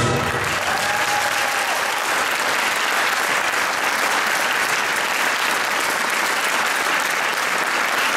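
Audience applauding steadily and densely, just as the dance music stops at the very start.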